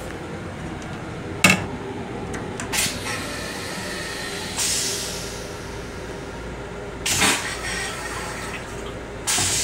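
LIRR M7 railcar toilet flushing: a sudden loud whoosh about a second and a half in, then several shorter hissing bursts, over the steady running noise of the train.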